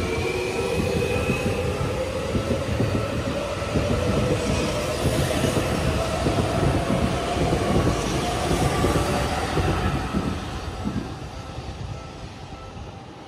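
Electric commuter train passing close by: its motor whine climbs in pitch as it gathers speed, over a rumble of wheels on the rails that fades over the last few seconds.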